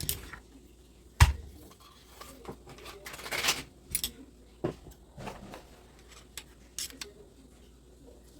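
Hard metal parts being handled: a series of clicks and clinks, with a sharp knock about a second in and a short scraping rattle around three seconds in.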